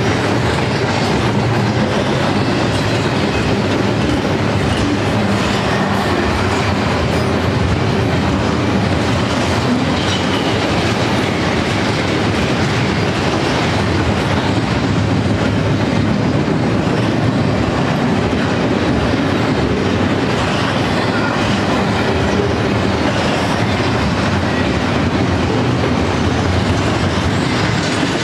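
Double-stack intermodal freight train's container well cars rolling past, steel wheels running on the rails in a steady, loud, unbroken rush of noise.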